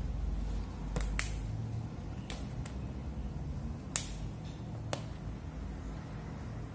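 Rubber band being torn apart by hand, about six short, sharp snaps spread over several seconds, the loudest about four seconds in.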